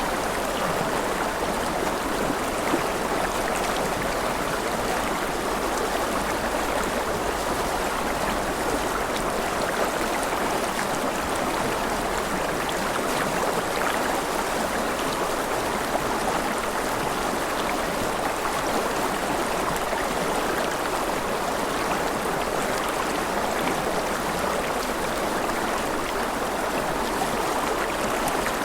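Steady rushing water: an even, unbroken wash of sound with no single drops or splashes standing out.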